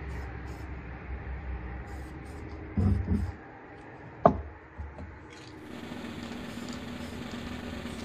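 Aerosol spray paint cans hissing in short spurts, then more steadily through the second half, with a dull thud about three seconds in and a sharp knock just after four seconds from cans and tools being handled.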